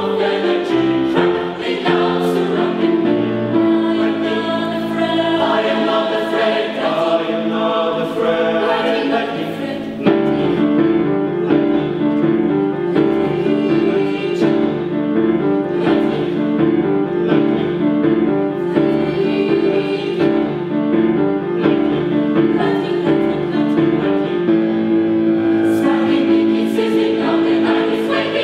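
Mixed youth choir singing in close harmony: held chords give way about ten seconds in to a rhythmic, pulsing passage, which closes on a long held chord near the end.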